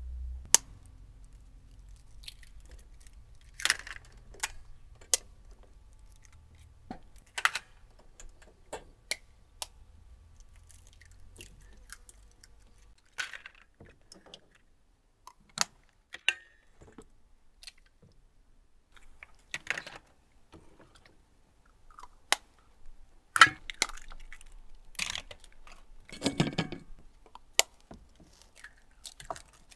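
Irregular sharp clicks and knocks of kitchen work with knives, bowls and eggs on a wooden table, one every second or two, the loudest a little over two-thirds of the way through.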